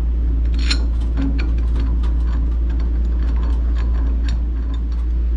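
Irregular light metallic clicks and clinks as a steel bearing splitter's blades and nuts are fitted and snugged around the bearing on a transmission input shaft, over a steady low hum.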